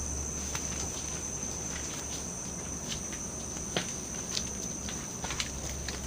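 A steady high-pitched insect chorus, with the scattered snaps and crunches of footsteps on twigs and wet undergrowth.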